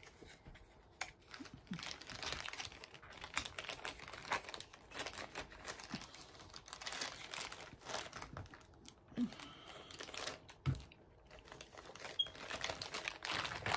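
A clear plastic bag crinkling as it is handled, in short irregular crackles, with one light knock about three quarters of the way through.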